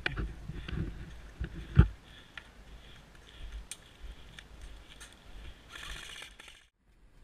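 Faint scattered clicks and knocks of a player's gear and footsteps on a gravel road, with one louder knock about two seconds in.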